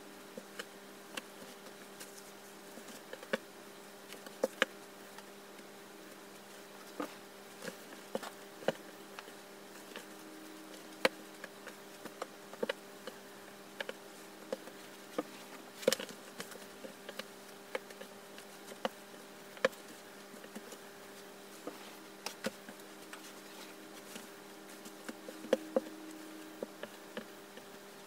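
Scrunchies being handled and set down while they are sorted, with many short, irregular light taps and fabric rustles. A steady low hum runs underneath.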